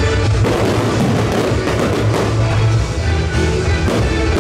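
Loud music playing over a fireworks display, with firework bursts and crackle mixed in.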